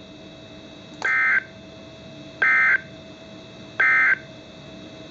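Three short bursts of NOAA Weather Radio EAS/SAME digital data tones, the buzzy end-of-message squawks that close an alert broadcast. They come about a second and a half apart.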